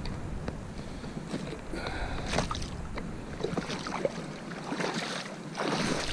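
Water splashing and sloshing in irregular swishes, with scattered small knocks and clicks; the biggest splash comes near the end.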